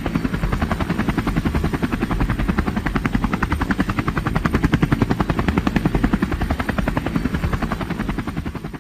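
Helicopter rotor chopping in a rapid, even beat over a deep engine rumble, fading out near the end.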